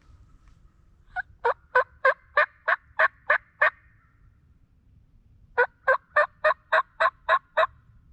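Two loud series of turkey yelps, the first of about nine notes and the second of about eight, evenly spaced at roughly three a second.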